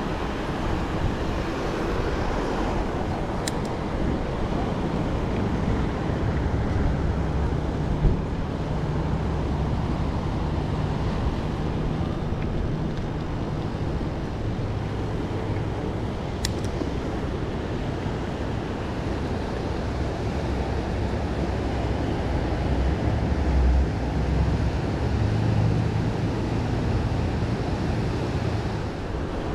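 Steady wind and rolling noise on a bike-mounted action camera during a ride, with road traffic running by in low swells. A couple of faint sharp clicks and one short knock are heard along the way.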